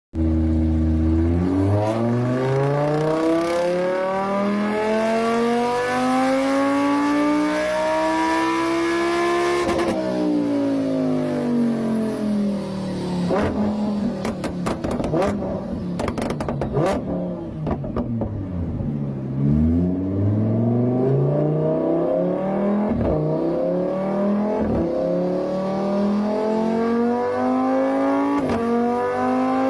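Lamborghini engine revving: the pitch rises steadily for about ten seconds, falls for the next ten with a run of sharp cracks as it comes down, then climbs again near the end.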